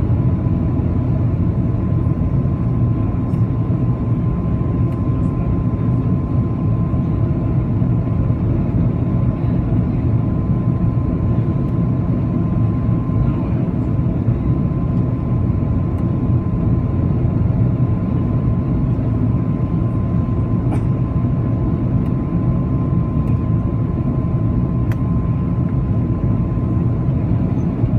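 Airbus A330-200 cabin noise on final approach, heard inside the cabin over the wing: a steady, deep rumble of engine and airflow with a thin steady whine above it.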